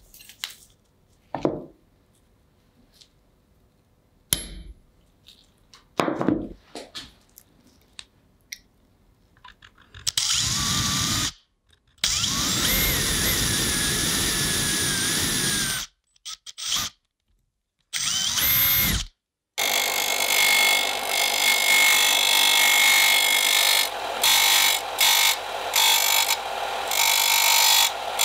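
A few scattered knocks and clicks, then a small power tool running in several stretches that cut off abruptly, its pitch wavering at times.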